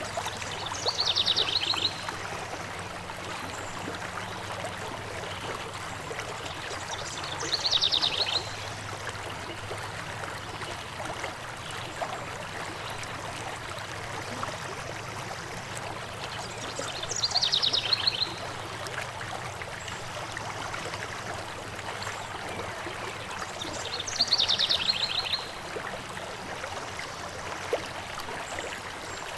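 A stream flowing steadily, with a songbird calling a quick, high trill four times, each about a second long and several seconds apart.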